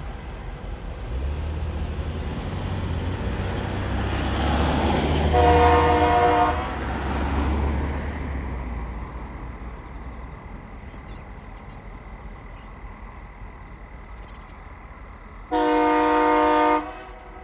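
TasRail TR class diesel locomotive TR02, running light with 2050-class locomotive 2053, passes with a low engine rumble that builds, peaks and fades away. A chord-type locomotive horn sounds one blast of about a second and a half as the locomotives go by, and a second, similar blast near the end.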